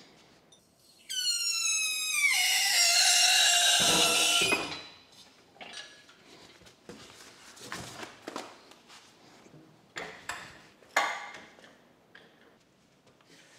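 Loud metal squeal from a shop crane lowering a heavy battery. It drops in pitch, then holds for about three seconds and stops. Scattered knocks and clunks follow as the battery is set down and handled.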